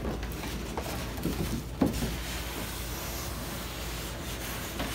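Lid of a long cardboard box being worked up off its base: a steady rubbing scrape of cardboard on cardboard, with a few light knocks in the first two seconds.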